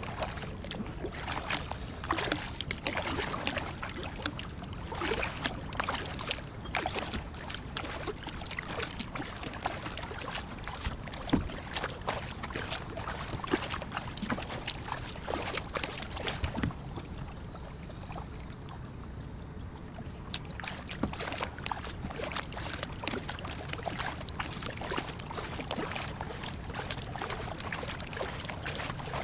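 Kayak paddling: a double-bladed paddle dipping and pulling through the water in repeated splashing strokes, water running and dripping off the blades. The splashing eases briefly about two-thirds of the way through.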